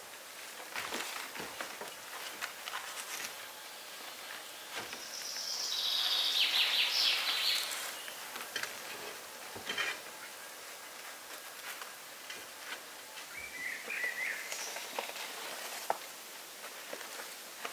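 Forest ambience with a steady faint hiss and scattered light clicks and taps. A songbird sings one descending trilled phrase about two to three seconds long, starting about five seconds in, and gives a short chirp later on.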